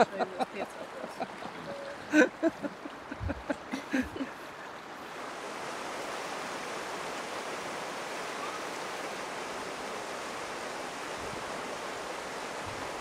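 Rushing river water, a steady even rush that sets in about five seconds in, after a few scattered knocks and clicks.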